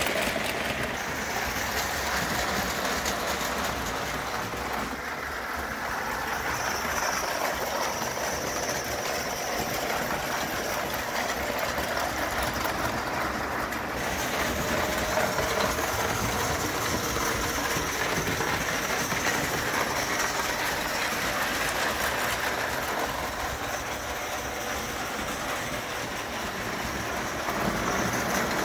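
Bing gauge 1 live steam locomotive and its tinplate carriages running under steam along tinplate track: a steady rolling sound of the wheels on the rails, with a faint high whine that comes and goes.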